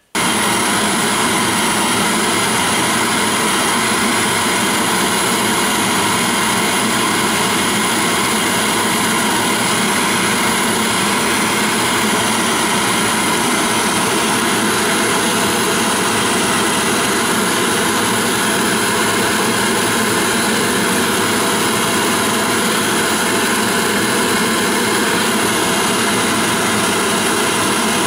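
Gas soldering burner lit and running flat out with a steady rushing roar, heating a fluxed copper boiler for silver soldering. It cuts in abruptly at the start.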